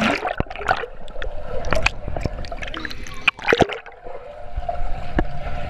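Underwater sound of a swimming pool heard through a GoPro's waterproof housing: water churning and bubbling, with many sharp clicks and knocks.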